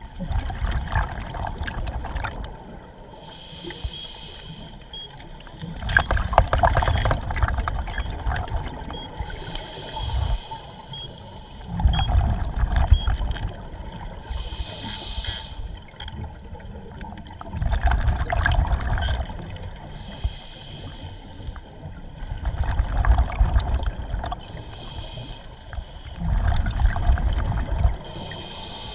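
Scuba diver breathing through a regulator underwater: a slow cycle of hissing inhalations and bubbling exhalations, about one breath every five seconds.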